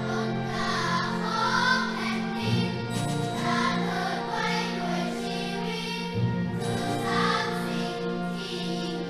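Children's choir singing with a youth orchestra of strings and brass, in long held notes over a steady bass line.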